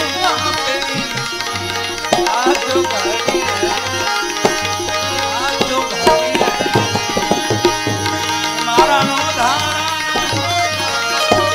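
Gujarati devotional bhajan music: tabla drumming keeps a steady rhythm under a gliding melody line.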